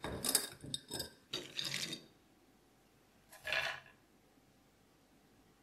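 A swing-top glass jar of almonds being opened: clinks and clatter of the glass lid and wire clasp for about two seconds, then one more short rattle a moment later.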